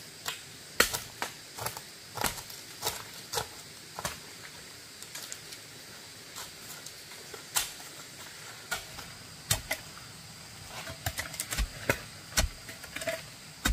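Stones and tools knocking together during stonework: irregular sharp knocks and clicks, the loudest about a second in and a quicker run of them near the end.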